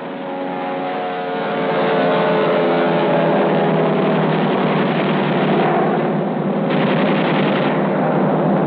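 Propeller aircraft engines droning steadily, rising slightly in pitch over the first couple of seconds, on a dull 1940s newsreel soundtrack.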